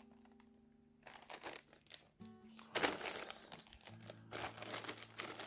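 Thin plastic bag crinkling as bagged plastic model-kit sprues are handled and lifted out of their box. Several rustles start about a second in, the loudest about three seconds in and again near the end. Soft background music with held notes runs underneath.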